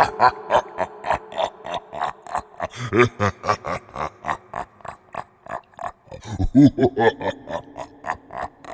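Deep, sinister male laugh: a fast, steady run of short 'ha' pulses, about four a second, swelling louder around three seconds in and again past six seconds.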